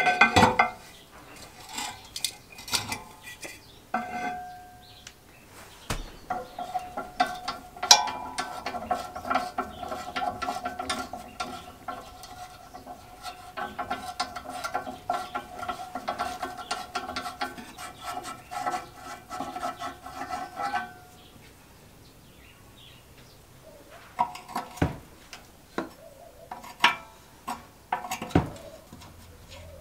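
Metal parts of an old Suffolk Super Punch reel lawnmower being handled while it is taken apart. It starts with clanks and knocks as the heavy rear roller comes off. A steady metallic ringing whirr with rapid clicking runs for about fourteen seconds. Near the end come separate clicks and knocks of a spanner working on the nuts of the side plate.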